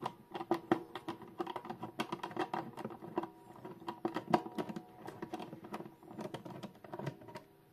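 Rapid, irregular small clicks and taps of metal clock parts being handled as a Junghans clock movement is worked free of its case, with a faint steady tone underneath.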